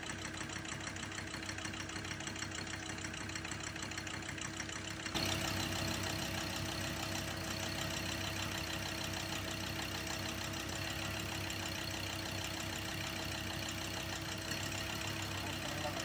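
Ford diesel engine idling with a loosened injector being readjusted to cure a misfire. About five seconds in, the sound changes abruptly and gets a little louder. From there it idles steadily, no longer missing.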